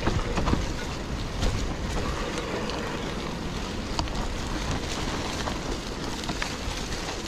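Mountain bike being ridden down a dirt trail: wind rushing over the microphone and tyres rolling over the ground, with scattered small clicks and rattles from the bike.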